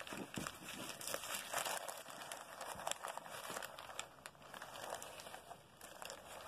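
Satin fabric and paper rustling and crinkling as hands fold and adjust a collar piece on a paper pattern, in irregular faint crackles.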